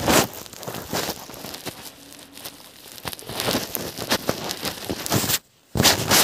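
Plastic clicks and rattles of a triangular Rubik's puzzle (Pyraminx) being twisted by hand close to the microphone, a quick run of irregular clicks that breaks off for a moment near the end.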